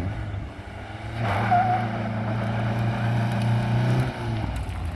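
Saturn car's engine revving up and held at high, steady revs during a launch, then dropping back to a lower note about four seconds in.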